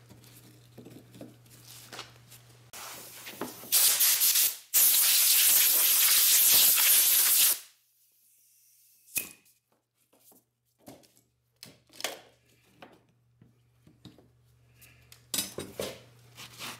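Pressurized spray hissing loudly in two blasts, a short one about four seconds in and a longer one of about three seconds right after it. Scattered light clicks and knocks of tool handling follow.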